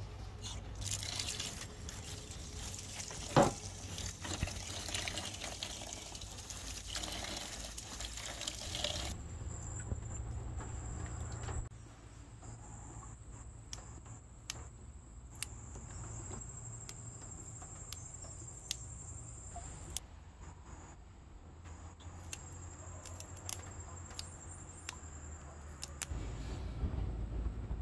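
Hands picking water spinach, snapping the stems and dropping leaves into a plastic colander: scattered sharp snaps and leaf rustling. For the first third there is a dense rustling hiss with one loud click, and a thin steady high tone runs behind the later part.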